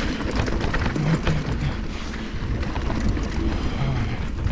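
Wind rushing over the microphone of a mountain bike rolling fast down a dirt and gravel trail, with tyre noise and many quick rattles and clicks from the bike over the rough ground.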